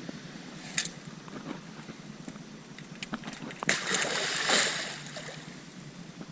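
Water splashing for about a second, a little past the middle, after a few sharp clicks.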